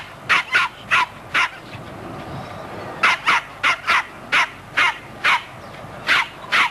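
Plummer terrier barking in short, sharp, high barks: a quick burst of five, a pause of about a second and a half, then a steady run of about nine more.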